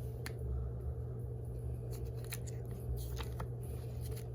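Scattered light clicks and crinkles of paper and cardboard packaging being handled, over a steady low hum.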